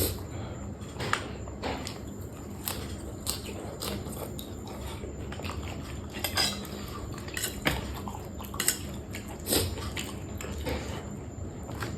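Close-up eating sounds: irregular clicks and clinks of utensils against dishes mixed with chewing.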